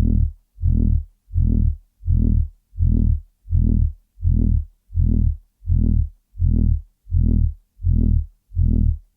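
Loud, low-pitched throbbing noise, pulsing on and off steadily about every three-quarters of a second, each pulse swelling up and dying away with a gap of silence between.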